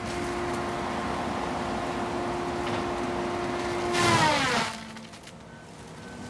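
A heavy machine's engine running steadily under load while it pushes over a tree. About four seconds in there is a loud cracking crash as the tree gives way, and the engine's pitch drops, settling to a lower, quieter run.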